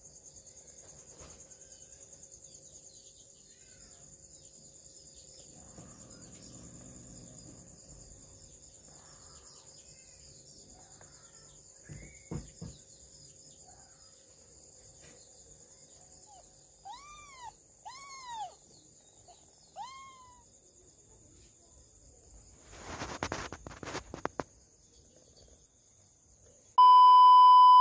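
Kittens mewing three or four short times, each call rising and falling, about two-thirds of the way through, over a steady high-pitched insect chirring. A burst of rustling follows, and near the end a loud steady electronic beep cuts in.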